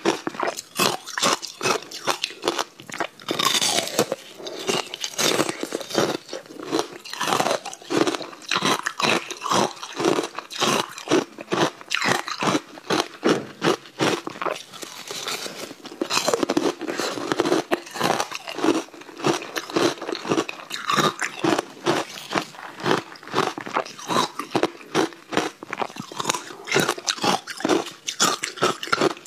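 A person biting and chewing hard blocks of frozen coloured ice, crunching continuously with several crunches a second.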